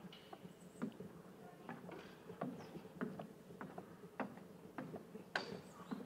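Footsteps walking at a steady pace, a sharp tap about every half second or so.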